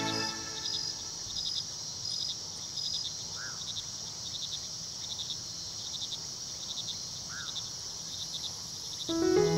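Crickets chirping in a regular rhythm, roughly two chirps a second, over a steady high hiss, with two faint short rising-and-falling calls. Music with clear notes comes back in near the end.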